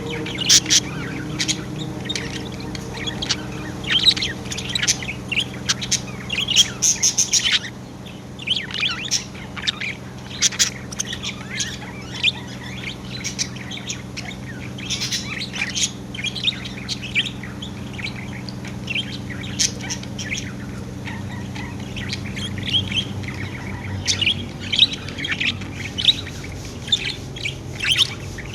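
Pet budgerigars chirping and chattering in quick runs of short high chirps, busiest in the first seven seconds or so and again near the end, over a steady low hum.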